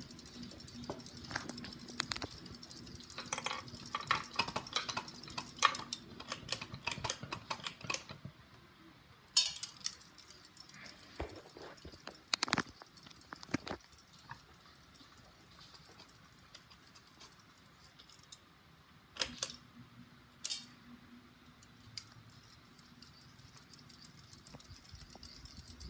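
Ceiling fan running with a faint low hum, under scattered clicks and rattles that cluster in the first third. Several sharp knocks follow. The hum drops away about a third of the way in and comes back after a sharp click about three quarters of the way through.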